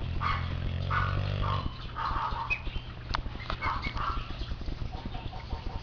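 Boxer dog snoring: one low, buzzing snore over the first second and a half or so, then softer.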